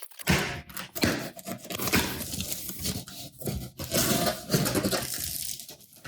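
A cardboard shipping box being opened: irregular scraping, tearing and crackling of cardboard and packing material, starting a moment in.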